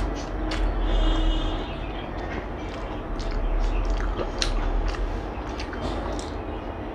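Chewing with sharp little mouth clicks over a steady low rumble, and a brief high tone about a second in.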